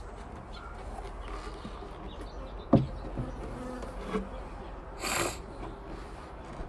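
Honeybees buzzing steadily, with one sharp knock nearly three seconds in and a brief rustle a little after five seconds.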